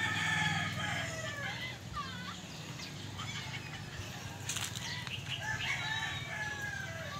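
A rooster crowing twice, once at the start and again near the end, over a steady low hum, with a sharp click about four and a half seconds in.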